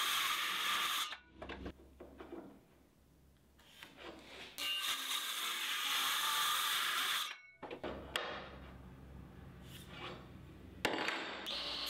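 Bosch cordless circular saw crosscutting a strip of melamine-faced plywood in three short cuts. One cut ends about a second in, the next runs from about four and a half to seven seconds, and a third starts near the end; it is much quieter between cuts.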